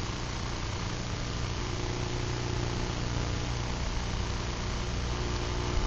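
Steady low hum with an even hiss over it, unchanging throughout, with no distinct snips or knocks.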